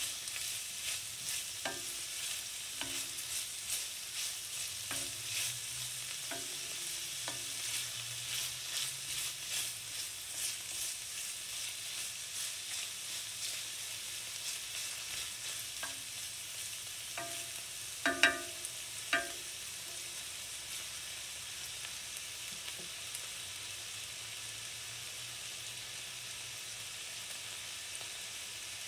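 Sliced onion and smoked bacon sizzling in an enamelled skillet. A wooden spoon stirs them in regular strokes about once a second through the first half. A couple of sharp knocks come about two-thirds of the way through, and then the frying sizzles on undisturbed.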